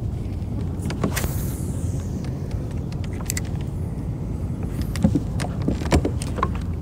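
Steady low rumble of the kayak drifting, with a handful of light clicks and knocks from the fishing rod and kayak being handled, several of them near the end. A brief falling swish comes about a second in.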